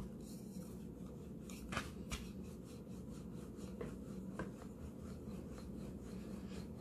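Wooden rolling pin rolling out a disc of dough on a bamboo board: soft repeated rubbing strokes with a few light knocks, over a steady low hum.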